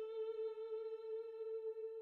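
Background music: a single held note with a lower note dropping out about half a second in, the held note slowly fading.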